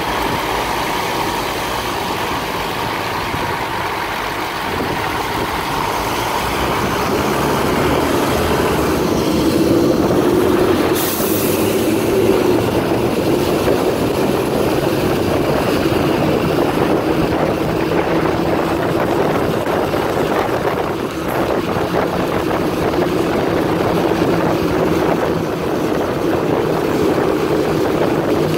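Freightliner M2 garbage truck driving, heard from its rear riding step: the diesel engine runs steadily and tyres swish on wet pavement. The engine note grows louder and rises as the truck speeds up from about eight seconds in, with a brief hiss about eleven seconds in.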